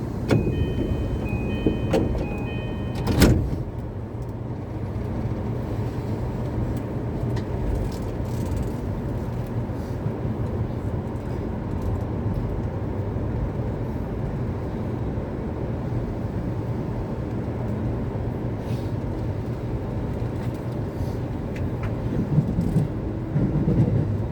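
Door-closing chime of an E233-5000 series commuter train, a few short repeated beeps, then the doors shut with a loud thud about three seconds in. After that the train runs with a steady low rumble heard from inside the car.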